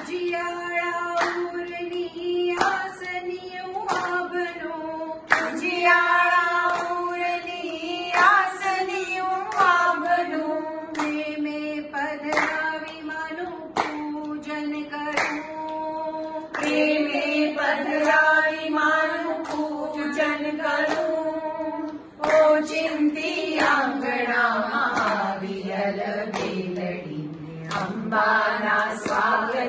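Group of women singing a Gujarati garba in unison, keeping a steady beat with their hand claps. The melody sinks low near the end.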